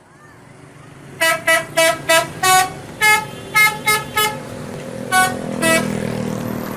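Telolet multi-tone musical horn playing a quick tune of about eleven short toots at changing pitches, in three phrases. A vehicle's engine and road rumble underneath swells after the last toot.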